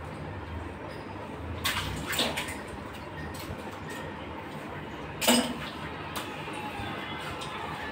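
A few sharp clinks and knocks of hard objects being handled, the loudest about five seconds in, over a steady low background hum.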